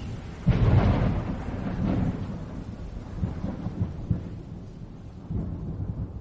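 Rolling thunder with a rain-like hiss, swelling about half a second in and then fading away.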